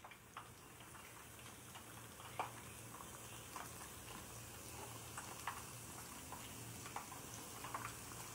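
Breadcrumb-coated chicken strips deep-frying in hot oil: a steady sizzle with frequent small crackles and pops.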